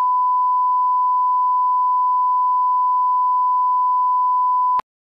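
One long, steady electronic beep, a single pure high tone like a test tone or censor bleep, held for about five seconds and cutting off sharply near the end.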